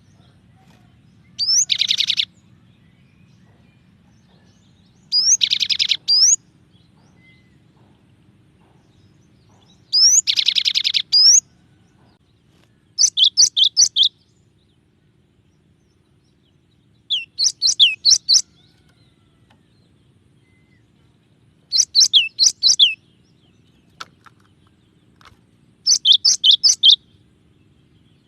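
Cinereous tit (gelatik batu) singing a varied song in short phrases about every four seconds. The first phrases are harsh, rapid trills, each with a sweeping whistle. Later phrases are runs of four to six clear whistled notes.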